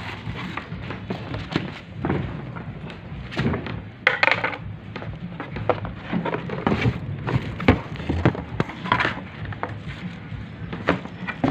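Irregular knocks, taps and scrapes of a plastic-and-metal solar LED floodlight and a cardboard box being handled, over a steady low background hum.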